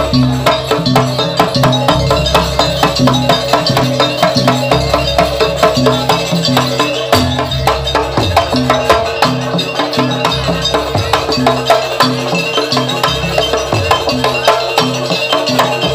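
Banyuwangi jaranan barong ensemble music: fast, dense percussion strikes over low held notes that step between pitches every second or so.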